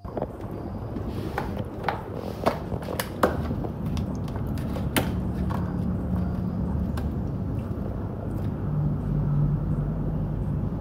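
Siberian husky chewing and gnawing on something hard, with irregular crunching clicks and cracks over the first few seconds, against a steady low hum.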